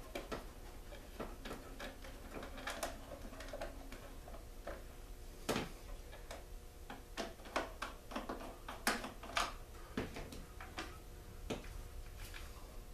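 Irregular clicks, taps and light knocks of a screwdriver and small metal and plastic parts as they are unscrewed and taken off a small two-stroke generator.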